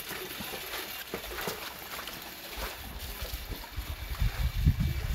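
Salted napa cabbage being rinsed by hand in tubs of water: splashing, sloshing and wet leaves rustling. A low rumble joins in about halfway through and grows louder near the end.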